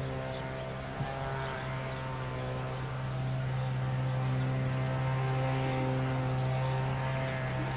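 Santa Fe diesel locomotives approaching at the head of an intermodal freight train, their engines giving a steady low drone that grows a little louder toward the middle.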